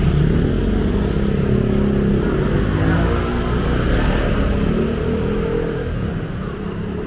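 A motor vehicle engine running close by, its pitch rising and falling, over a steady rumble of street traffic.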